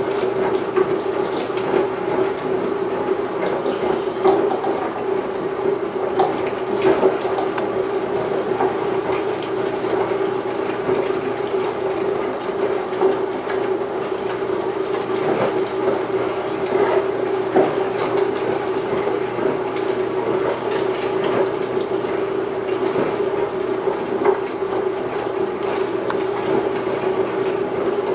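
Electric-motor, belt-driven #32 meat grinder running steadily with a constant hum while grinding cubed pork shoulder, with scattered light clicks.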